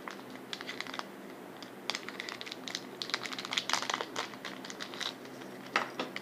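Small plastic bag crinkling in bursts as it is handled and opened to get the dog tag out.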